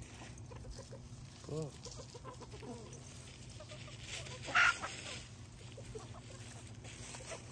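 Backyard chickens clucking, with one louder rising-and-falling call about a second and a half in and a short, loud scratchy burst a little past the middle.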